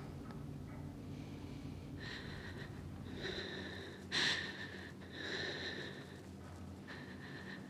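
A woman breathing heavily and unevenly, in short audible breaths about a second apart beginning a couple of seconds in, the sharpest about four seconds in, over a low steady hum.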